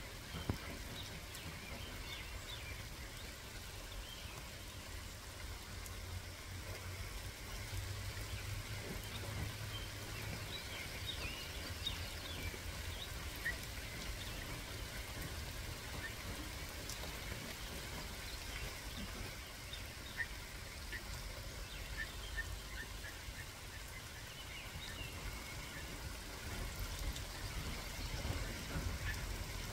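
Steady rain falling, with short, faint bird chirps scattered throughout.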